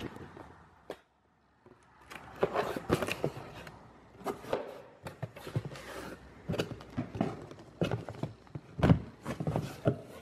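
A cardboard shipping box being opened and plastic bottles of rubber texturizing grit handled inside it: a string of cardboard rustles, scrapes and light knocks, with a heavier thump near the end. A brief dead gap comes about a second in.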